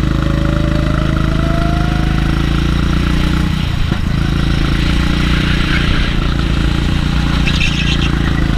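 Rimo kart's engine running at steady high revs, heard from on board, with a brief dip in the engine note just under halfway through.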